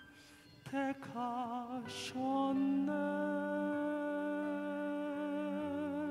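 A man singing a slow gospel ballad with wide vibrato over a backing accompaniment, then long notes held over a sustained chord from about two seconds in.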